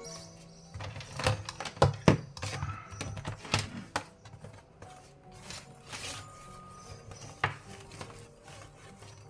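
Soft background music with a run of sharp knocks and clatters of objects being handled, thickest in the first few seconds, then a few scattered knocks.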